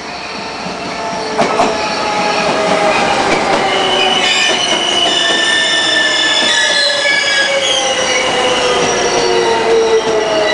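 TRA EMU500 electric multiple unit pulling into the platform, getting louder over the first two seconds as it comes close. A high whine from the running gear falls slowly and steadily in pitch as the train slows, over the rumble of wheels on the rails. A couple of clicks come about a second and a half in.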